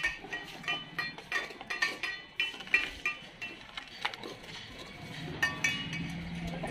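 Stainless steel dog bowls clinking and ringing as dogs eat from them, in irregular knocks several times a second. A low steady hum comes in about five seconds in.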